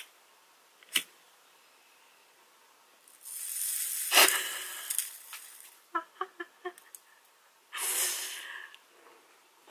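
A woman laughing helplessly: a long breathy burst of laughter, then a quick run of short voiced 'heh' pulses, then another breathy burst near the end. A light click comes about a second in.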